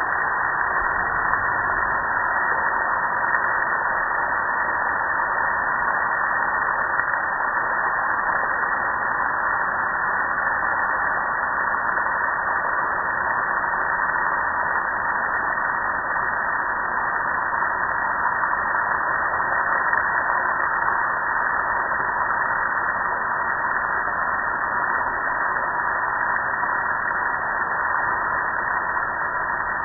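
Steady rush of water spraying from a garden hose nozzle and splashing over a metal gas grill, unbroken throughout.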